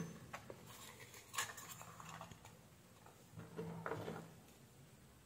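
Faint handling noises of a power-supply circuit board being moved and turned over in the hand: a few light clicks and two short rustling scrapes, the second a little before the end.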